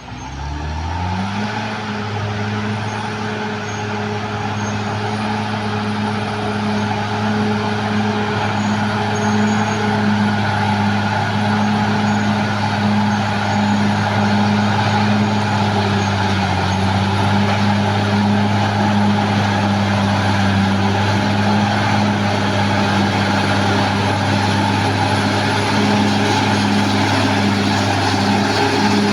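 Caterpillar D6R XL bulldozer's diesel engine revving up over the first second or two, then running steadily at an even pitch.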